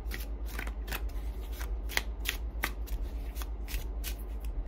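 A tarot deck being shuffled by hand, overhand: a steady run of short card slaps, about three a second.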